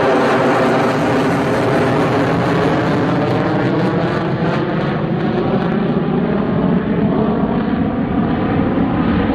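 Lockheed Martin F-22 Raptor's twin Pratt & Whitney F119 turbofans, loud and steady as the fighter flies past and away with afterburners lit. In the second half the pitch sinks a little and the hiss fades.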